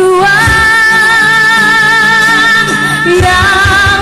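A woman singing with a live band, holding one long note with a slight vibrato for about three seconds before the melody moves on near the end, over guitar and band accompaniment in a slow pop ballad.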